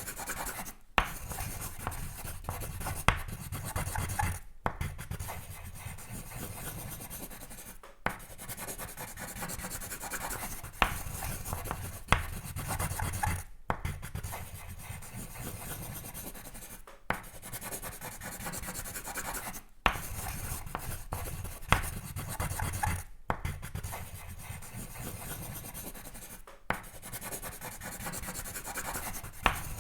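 Drawing on paper, sketching strokes scratching and rubbing steadily. Every 3 to 4 seconds there is a brief pause, and sharp ticks sound as the tip is set back down.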